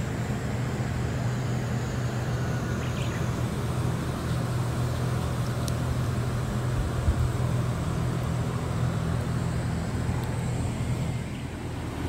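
Steady low mechanical hum with even background hiss, and a faint, high, steady whine above it.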